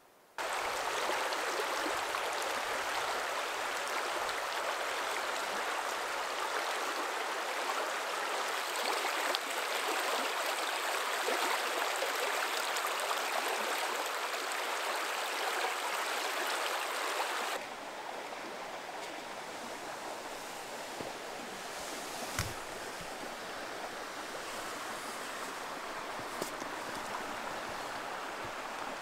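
Rushing water of a stream, a steady even rush that drops suddenly to a quieter rush about two-thirds of the way through, with a few faint clicks in the later part.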